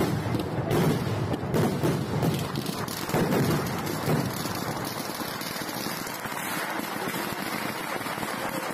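Fireworks (vedikettu) exploding: a rapid string of booms for the first few seconds, thinning about halfway into a steadier rumbling crackle.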